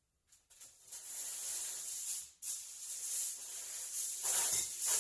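Food sizzling in a hot frying pan: a steady high hiss that starts about half a second in, cuts out briefly near the middle, then returns and swells louder near the end.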